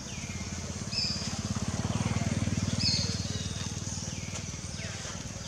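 A small engine running with a fast, low, even pulse, growing louder to about two or three seconds in and then fading. Over it are a steady high drone and a few short high whistles and falling chirps.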